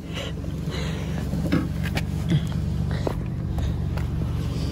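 Car engine idling, heard from inside the cabin as a steady low hum, with a few light clicks and knocks of handling inside the car.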